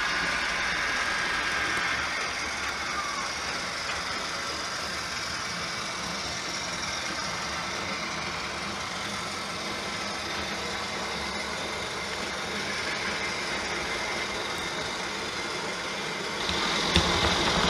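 Sound-fitted OO gauge model diesel multiple units running: a diesel engine sound from the decoder's small speaker, with the running noise of the model on the track. It grows louder near the end.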